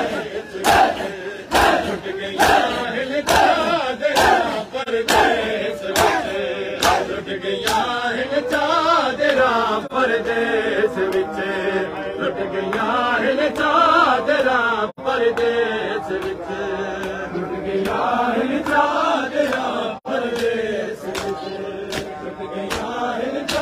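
A crowd of men chanting a noha in unison, with rhythmic hand-on-chest matam strikes a little more than once a second. The strikes are sharpest in the first several seconds, then the chanting voices take over.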